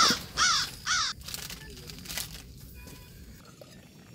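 Crow cawing: three loud caws about half a second apart in the first second or so, then only a faint background.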